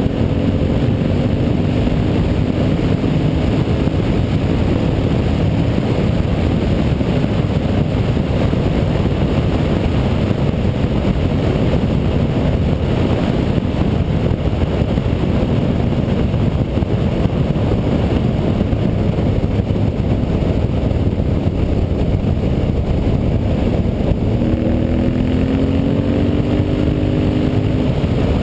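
Honda Varadero 1000 V-twin motorcycle engine running at road speed under heavy wind rush on the on-board microphone. The engine note is clearest at the start, sinks under the wind, and rises again in the last few seconds as the bike accelerates.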